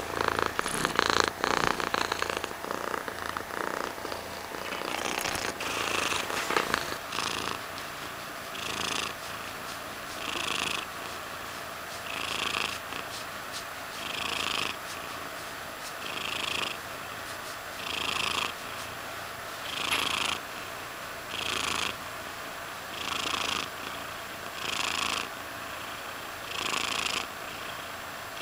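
Tabby cat purring close to the microphone, swelling in loudness with each breath, about one swell every second and three-quarters. Over the first several seconds a crackling rustle lies over the purr.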